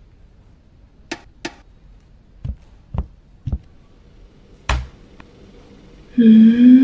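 Toy robot being tapped: two sharp clicks, then three knocks about half a second apart. A louder clattering knock follows as it topples to the floor, then a short voiced exclamation near the end.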